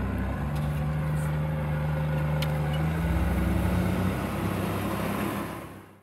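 Case IH MX120 tractor's diesel engine running steadily under load while pulling a plough across a steep slope, fading out near the end.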